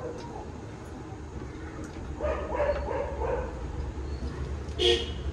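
A dog whining and yipping: a run of short calls about two seconds in, then a single sharper bark near the end.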